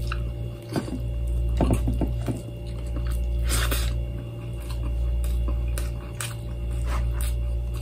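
Close-up mouth sounds of a man eating balut and rice with his hands: wet chewing, lip smacks and finger licking, with one longer wet smack about halfway, over a steady low hum.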